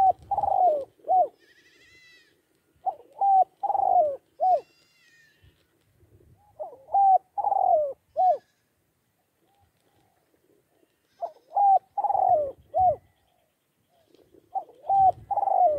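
Spotted dove cooing: a phrase of three or four short coos, repeated five times about every three to four seconds. A few thin, high chirps from another bird come in between phrases.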